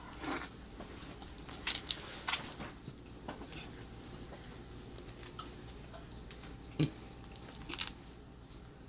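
A person eating shrimp-boil food close to the microphone: scattered crunches, bites and wet mouth clicks, with the sharpest ones about two seconds in and again near the end.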